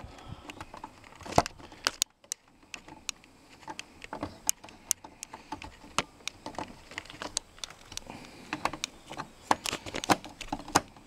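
Irregular small clicks and ticks of a screwdriver working the terminal screws of a 20 amp two-pole circuit breaker as the wires are fastened in the panel. There is a brief lull about two seconds in.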